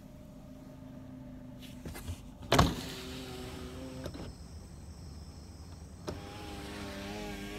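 Car power window motor whirring in two runs of about a second and a half each, the first starting with a clunk about two and a half seconds in and the second starting about six seconds in. A faint steady hum is heard beforehand.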